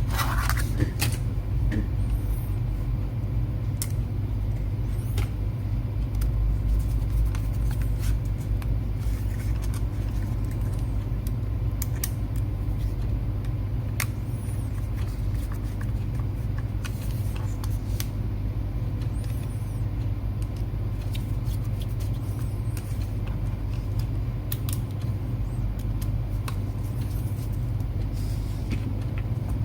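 Small clicks and taps of a laptop drive and its parts being handled and fitted, scattered irregularly, over a steady low hum that is the loudest sound throughout.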